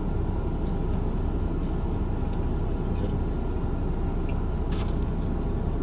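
Steady low rumble of an idling car, with a few faint clicks over it.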